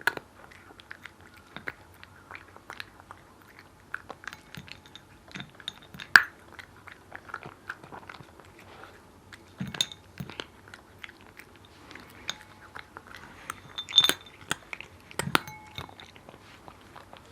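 A cat chewing and crunching dry kibble, a run of irregular small crunches with now and then a louder sharp click.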